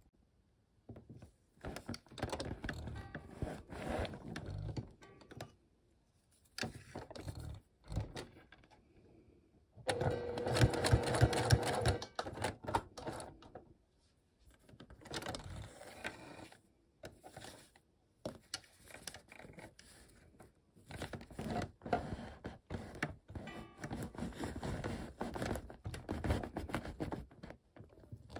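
Sewing machine stitching through a bulky seam of thick vinyl and lining in short runs, stopping and starting many times. The longest and loudest run comes about ten seconds in.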